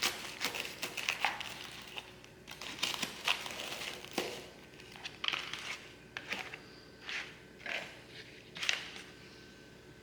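Toasted, buttered bread of a grilled cheese sandwich crunching in a string of short, crisp, irregular crackles as it is cut and handled, dying away near the end.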